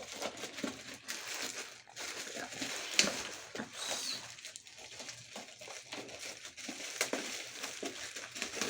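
Packaging wrap on a parcel being pulled open and crumpled by hand, a steady crinkling with a few sharp snaps.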